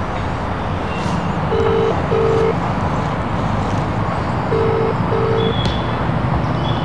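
Mobile phone ringback tone heard through the phone's speaker while a call rings out unanswered: two double rings, each two short low beeps, about three seconds apart. Steady outdoor background noise runs underneath.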